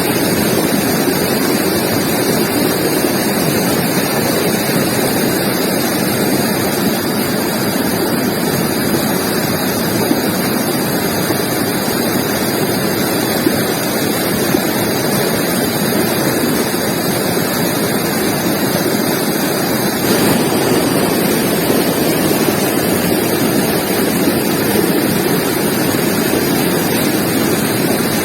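River water flowing over rocks, a steady, full rushing sound. Its tone shifts slightly about twenty seconds in.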